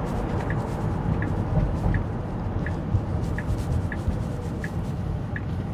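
Tesla Model Y's turn-signal indicator ticking steadily, about three ticks every two seconds, over a low rumble of road noise inside the cabin as the car, driving itself, makes a left turn.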